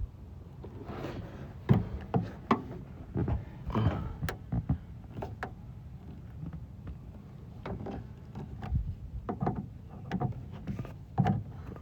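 Irregular knocks, clicks and creaks as a part is pried and worked loose from a car door, coming off in a string of pops.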